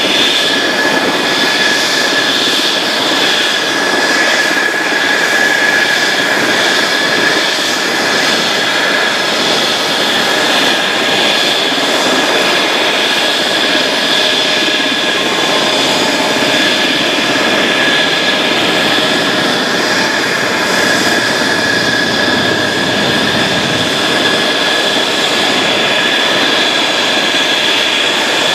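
Rolls-Royce Dart turboprop engines of a NAMC YS-11 running at high power with a steady high-pitched whine over a broad roar, as the aircraft begins its takeoff roll.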